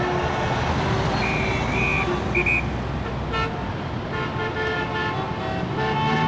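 City street traffic with cars passing, and three short high-pitched toots between one and three seconds in.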